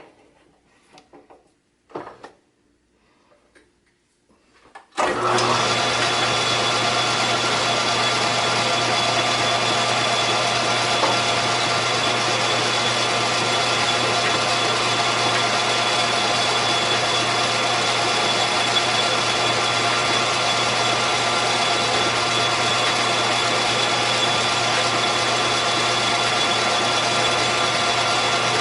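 A few light knocks, then a metal lathe switched on about five seconds in and running steadily with an even hum and whine, spinning a steel workpiece ready for spotting with a center drill.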